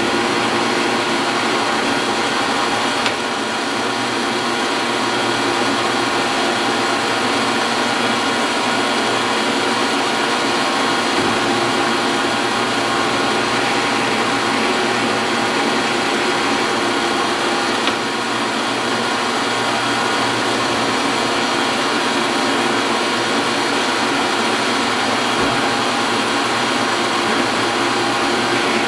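Metal lathe running steadily during single-point threading: a continuous motor and gear hum with several steady tones. Two brief clicks come about three seconds in and again after the middle.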